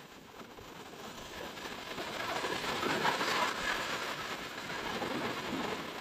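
Small sea waves breaking and washing up the sand at the water's edge, a rushing wash that swells to its loudest about three seconds in and then eases.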